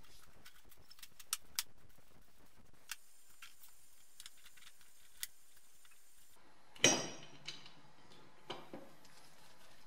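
Metal pipes and rubber hoses with metal end fittings being handled on a wooden workbench: scattered light clicks and taps, with one louder knock and a short ring about seven seconds in.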